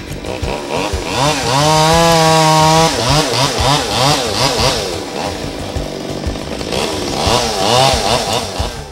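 Two-stroke chainsaw revving up and down several times, held at a steady high pitch for about a second between the revs.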